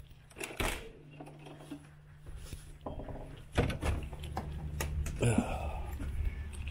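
A door clicking and thudding as it is opened and shut, with several sharp knocks. A low steady hum comes in about halfway through.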